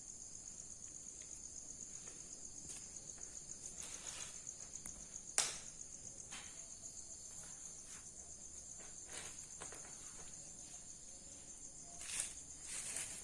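Insects chirring steadily in a high continuous drone, with a few short knocks or rustles: the loudest about five seconds in, and a couple more near the end.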